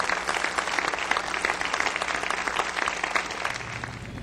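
Audience applause, many hands clapping, dying away near the end.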